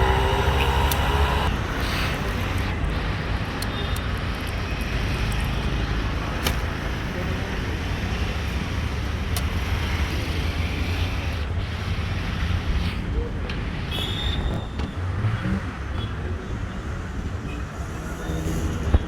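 Street traffic noise: a steady rumble of passing vehicles, with a few short clicks and knocks and faint voices in the background.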